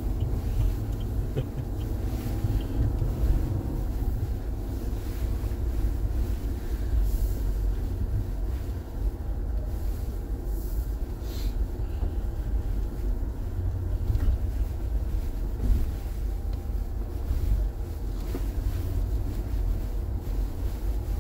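Ineos Grenadier 4x4 driving along a dirt trail, heard from inside the cabin: a steady low rumble of engine and drivetrain, with a few light knocks from the rough track.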